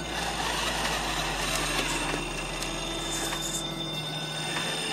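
Electric motor and drivetrain of a scale RC rock crawler, making a steady low whir as it crawls slowly over rocks; the whir fades out about four seconds in.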